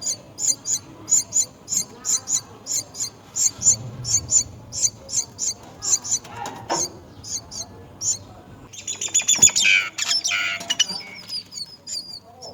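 Small birds at a nest chirping: a steady run of short, high chirps, about three a second, with a louder burst of busier calling about nine seconds in.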